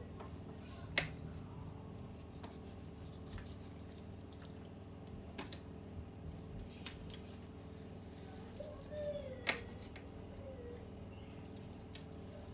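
Hands rubbing spice seasoning into raw chicken skin: soft wet squishing with a few light clicks, the sharpest about three quarters of the way through, over a steady low hum.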